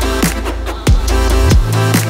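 Electronic background music with a heavy bass line and a steady, punchy drum beat.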